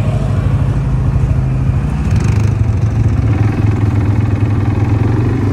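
Quad bike (ATV) engine running steadily under way on a dirt track, its pitch picking up slightly about three seconds in.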